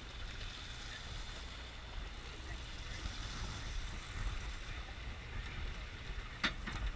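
Steady low rumble and hiss aboard a fishing boat at sea, with a couple of sharp clicks near the end.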